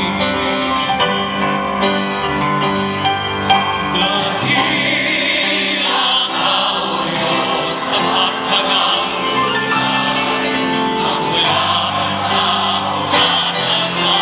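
Large mixed choir singing gospel-style church music with a live band of drums, bass and guitar; a few cymbal crashes cut through.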